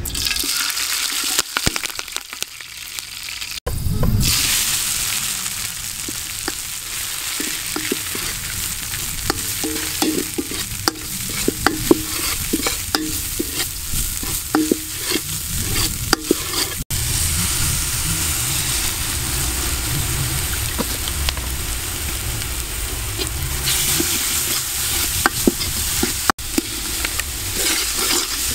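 Green herb paste and leaves frying in hot oil in a metal pot, sizzling steadily while a metal spatula stirs and scrapes against the pan with frequent sharp clicks. The sizzling picks up about four seconds in.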